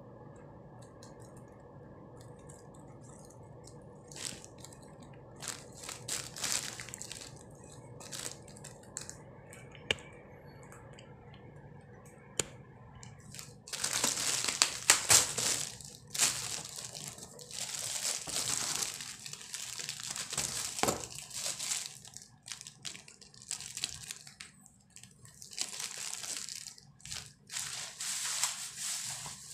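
Plastic packaging bags crinkling and rustling as they are handled and pulled out of a cardboard box: a few scattered rustles at first, then louder, near-continuous crinkling from about halfway through. A faint steady hum runs underneath.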